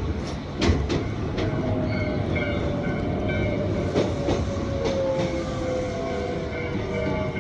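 Electric commuter train heard from inside the car: wheels clicking over rail joints at first, then steady running noise with a motor whine that slowly falls in pitch.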